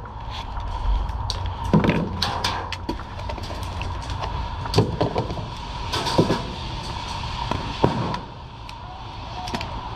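Scattered clacks and knocks of an airsoft rifle and its magazine being handled after the magazine has run empty, over a faint steady tone.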